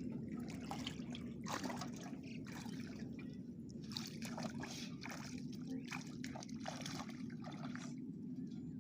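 Water trickling and splashing in quick, irregular spurts, over a steady low rumble.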